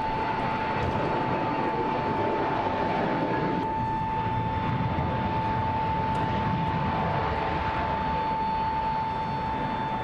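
Aircraft engine noise: a steady rushing roar with a constant high whine over it.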